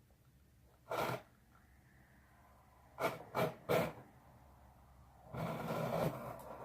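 A cardboard package being cut and opened. There is one short scraping tear about a second in and three more close together around three seconds in, then a longer rustle of cardboard and packing from about five seconds in.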